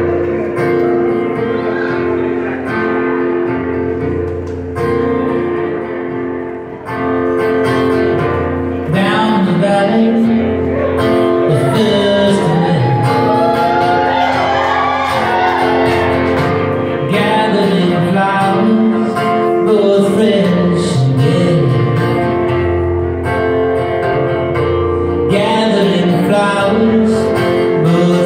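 A live folk band playing, led by strummed acoustic guitars holding a steady chord pattern. A voice comes in singing the melody about nine seconds in, and the band gets louder there.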